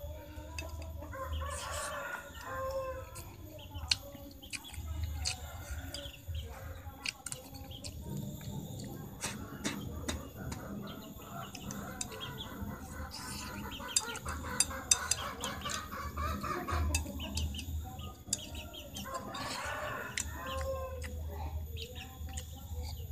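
Chickens clucking, with a rooster crowing several times, over small sharp clicks of a utensil on a china plate.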